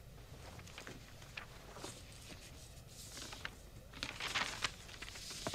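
Sheets of paper rustling as documents in a folder are leafed through, in a few short, faint bursts.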